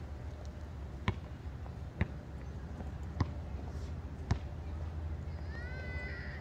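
Basketball bouncing on a concrete court: four single bounces about a second apart over a low steady background hum. A short rising chirp comes near the end.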